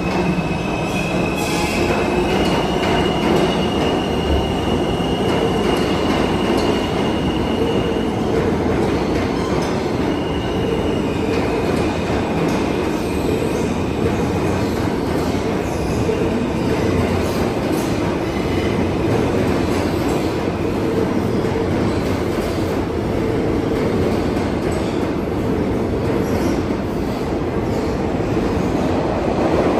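New York City subway trains running past on the track, a steady loud rumble of steel wheels on rail. A high, thin wheel squeal rides over it for most of the first eight seconds and comes back briefly a few seconds later, and the sound grows louder at the very end.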